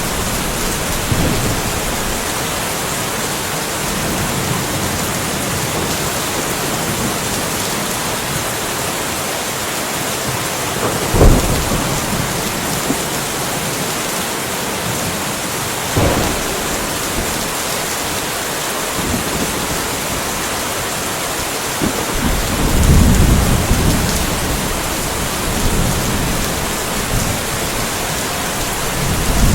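Steady rain falling, with thunder: two sharp cracks about eleven and sixteen seconds in, and a low rumble swelling and fading a little later.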